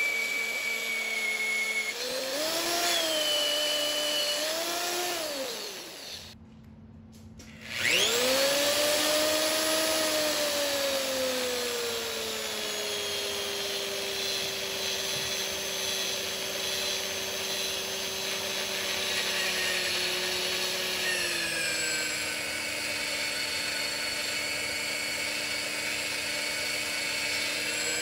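Magnetic drill press (mag drill) motor running as it drills a hole in a steel plate. Its whine falls away about six seconds in, starts again and spins up about two seconds later, then sinks slowly in pitch as it works under load.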